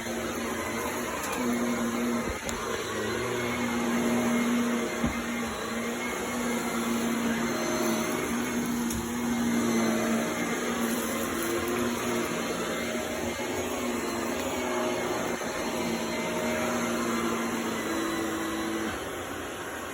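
Corded household vacuum cleaner running, its motor hum wavering in pitch over a steady rush of air. Near the end the hum drops out and the sound gets quieter.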